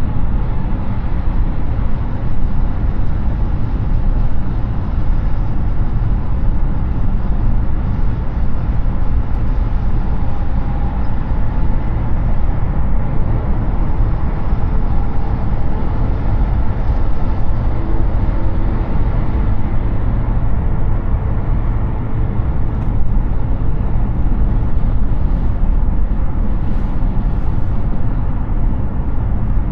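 Steady road noise of a Hyundai Ioniq 6 electric car cruising on a highway: tyre roar and wind with a heavy low rumble, no engine sound.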